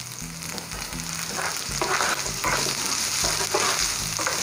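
Chopped onion, garlic cloves and spices sizzling in oil in a nonstick frying pan, with a spatula stirring through them in repeated scraping strokes from about a second in.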